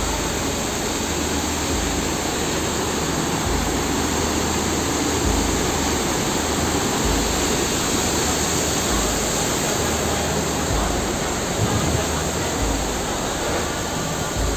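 Heavy rain falling in a downpour with water running off, a steady, even hiss. A low bump comes about every two seconds underneath.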